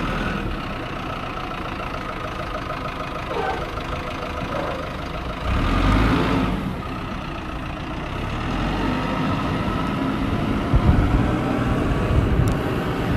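A vehicle engine running steadily at idle, swelling louder for a moment about six seconds in.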